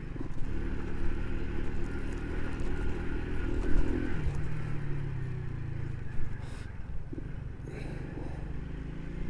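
Small motorcycle's engine running while the bike is ridden over a rough dirt road. Its pitch drops about four seconds in as the revs fall, and it then runs on at a lower, steady note.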